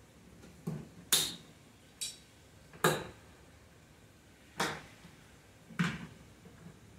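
Straps and buckle hardware being fastened on a Humes & Berg Enduro hard plastic cymbal case: a series of about six sharp clicks and clacks, spaced irregularly one to two seconds apart.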